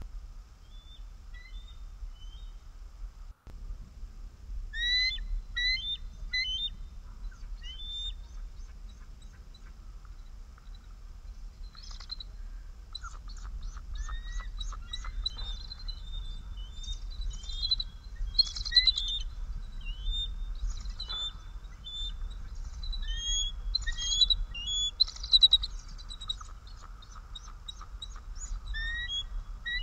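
Bald eagles calling: bouts of thin, high chirping, piping notes given in quick series, the pair reacting to intruders. A steady low wind rumble runs underneath.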